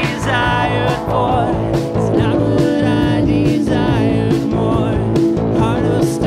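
Live multitrack recording of a band playing back: drums, bass guitar, guitars and a singing voice. An EQ boost is being swept across the whole mix.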